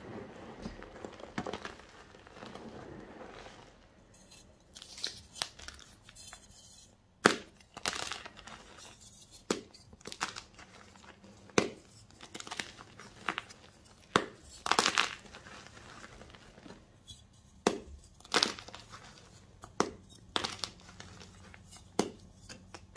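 Hands rummaging and squeezing through loose crumbled gym chalk, a soft powdery rustle. About four seconds in, blocks of gym chalk are broken and crushed by hand: a series of sharp, dry crunches every second or two, with soft crumbling between them.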